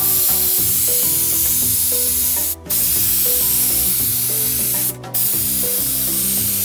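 Compressed-air spray gun hissing as it sprays coloured cocoa butter into a polycarbonate chocolate mould, in three long passes that stop briefly twice, about two and a half and five seconds in.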